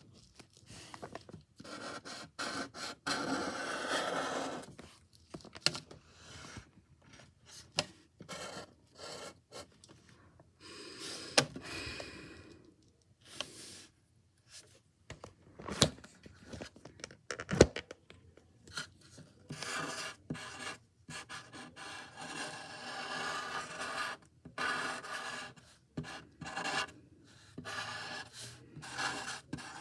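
Scratchy strokes of a drawing tool on paper, coming in irregular runs with short pauses, and a few sharp clicks between them.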